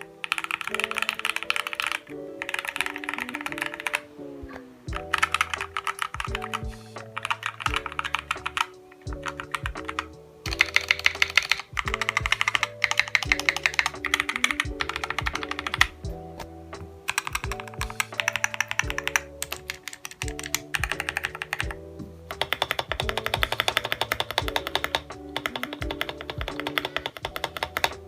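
Typing on a custom-built Lego keyboard: fast runs of key clicks lasting one to three seconds, broken by short pauses. Background music plays under the typing.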